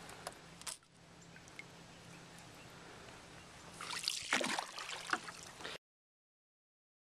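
Water sloshing and trickling close to the microphone over a faint steady hum, with a louder stretch of splashing about four seconds in; the sound cuts off abruptly near the end.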